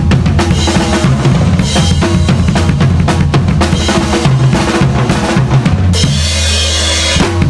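Drum kit with a Hendrix Archetype lacewood 14×7 snare and a Yamaha FP9500C kick pedal, played as a fast punk-rock beat of kick, snare and cymbals. About six seconds in the beat gives way to a ringing cymbal crash held for over a second, and the beat comes back in near the end.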